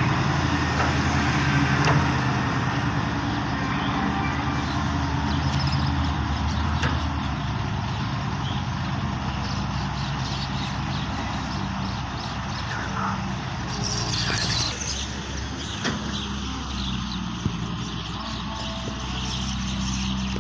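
Heavy diesel dump truck engines running, loudest at first as a loaded truck pulls away over the dirt, then steadier. A short hiss comes about fourteen seconds in.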